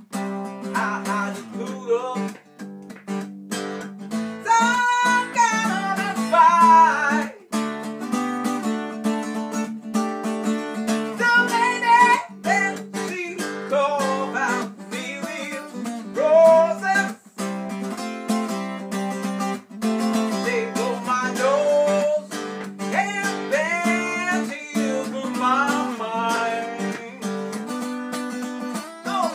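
Acoustic guitar strumming a country rhythm, with a voice singing and making vocal sound effects over it in sliding, wavering notes.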